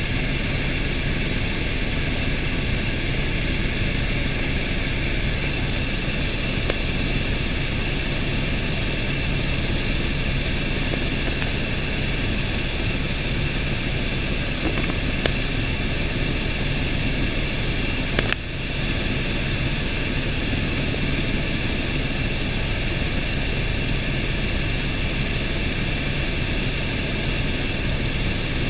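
Helicopter in flight heard from inside the cabin: a steady, loud drone of turbine engine and rotor. A single brief click sounds about two-thirds of the way through.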